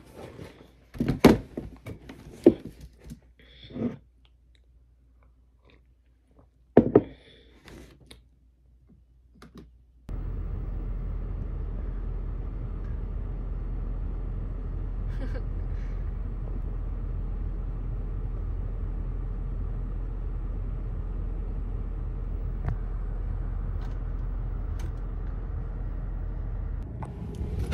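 A few scattered knocks and clicks, then, starting abruptly about ten seconds in, a steady low rumble of a car running, which cuts off shortly before the end.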